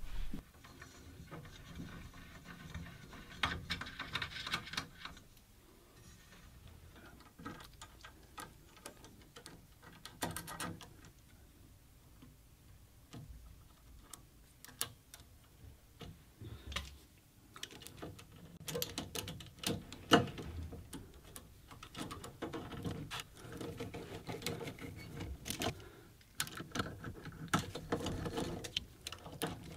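Quiet, scattered clicks, taps and small metal knocks from hand assembly on an aluminium-extrusion CNC gantry: the Acme lead screw being worked through its nut blocks and a stepper motor being unscrewed with a screwdriver. The handling noise gets busier in the second half, with one sharp knock about two-thirds of the way through.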